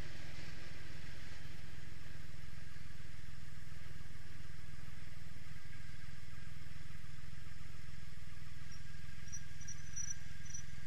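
Cruiser motorcycle engine running steadily at low speed, a constant low drone with no revving.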